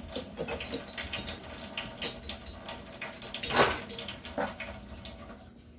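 Water running from a kitchen tap, with scattered clicks and knocks of handling and a louder knock about three and a half seconds in.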